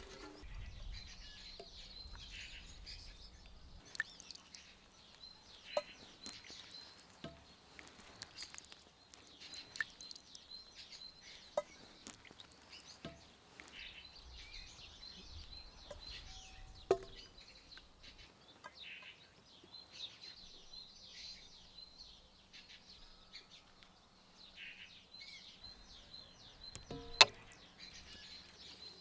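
Birds chirping steadily. Over this come light knocks every second or two as hulled strawberries drop one by one into an enamel bowl. The loudest knock, near the end, rings briefly.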